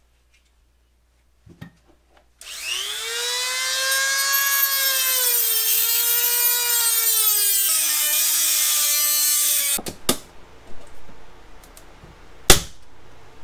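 Dremel rotary tool cutting into the plastic case of a LiFePO4 battery: a high whine that rises as it spins up, then sags and drops in pitch in steps as it bites, before stopping abruptly. A single sharp knock follows near the end.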